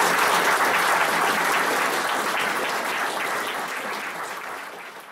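Audience applauding, a dense patter of many hands clapping that fades away toward the end.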